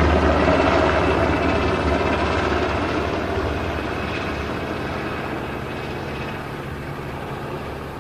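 Sikorsky MH-60S Sea Hawk helicopter in flight, its rotor and twin turboshaft engines giving a steady dense roar that fades as it flies away.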